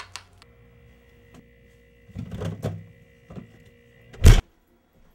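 A faint steady hum with light rustling about two seconds in, then a single loud, sharp thump a little after four seconds.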